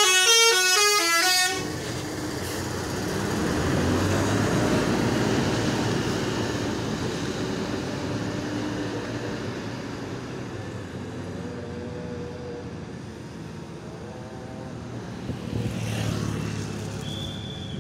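A bus's Basuri telolet musical horn plays a stepped multi-note melody and cuts off about a second and a half in. Then a passing vehicle's engine and road noise swell and slowly fade, with a second, smaller swell near the end.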